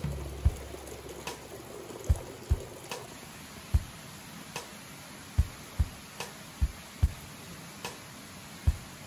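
Sparse background music: a soft low kick-drum beat with light ticks, evenly spaced. For the first few seconds it sits over hot-spring water pouring from a spout onto a metal grate, which cuts off about three seconds in.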